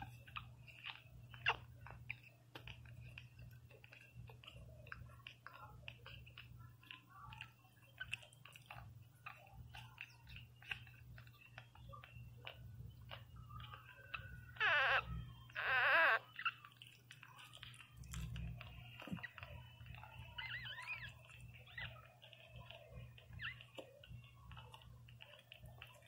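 Newborn Pinscher puppies suckling, with many small wet clicks and smacks and thin high whimpers. Just past halfway, two loud squealing cries in quick succession.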